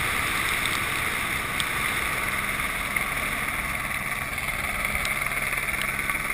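Steady drone of a helicopter overhead, its rotor and turbine noise mixed with wind rushing over the microphone of a rescuer slung below it on a long line.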